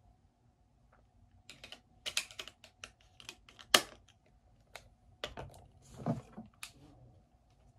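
Irregular clicks and small plastic rattles of a camera lens and its caps being handled and twisted, the sharpest click about halfway through, then a duller knock about six seconds in as the lens is set down on the wooden desk.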